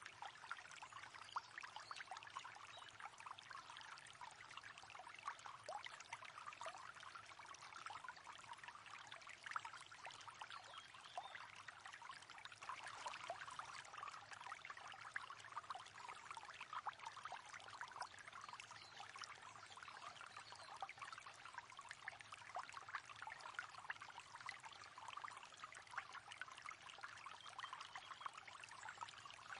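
River water flowing steadily, a continuous babbling and trickling with many small splashes.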